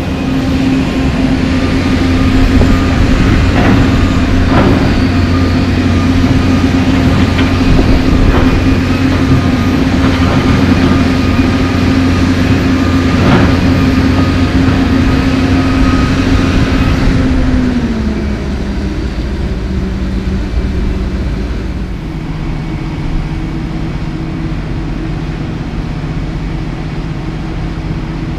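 John Deere 350D LC excavator's diesel engine working at high revs, with a few sharp knocks of the bucket against broken asphalt. A little past halfway the engine note falls and it settles to a lower, quieter idle.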